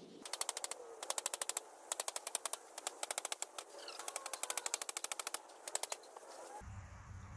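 Hammer striking a wooden board laid across the top of a vinyl fence panel, driving its stakes into the ground: sharp wooden knocks in quick runs of about ten a second, with short pauses between runs. The knocking stops near the end.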